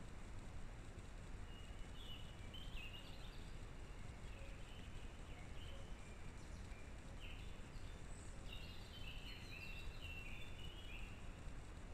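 Faint songbird song: short high chirping notes in quick little phrases, coming more often in the second half, over a steady low background hiss.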